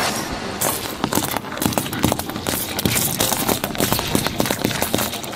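A car tyre rolling slowly over a row of small lemons and crushing them: a dense, irregular run of crackling and crunching.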